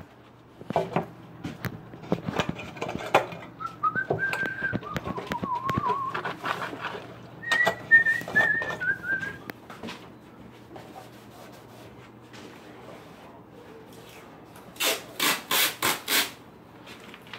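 A person whistling a short tune in two phrases, the second a little higher, over scattered knocks and rustles of handling. Near the end there are five short, sharp noises in quick succession.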